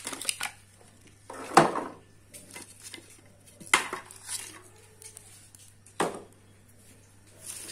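Sharp metal clanks, about five of them a couple of seconds apart, the loudest about a second and a half in, as an iron ring pot stand is set down and shifted over a wood fire.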